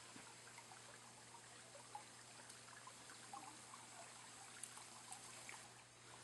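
Faint trickling of shallow water, with small scattered drips and ripples.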